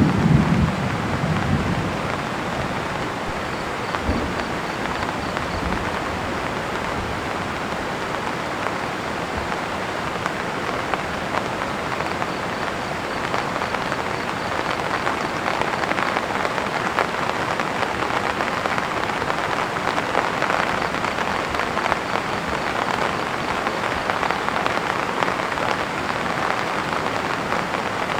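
Heavy rain falling steadily, with a low rumble of thunder fading out in the first second or so.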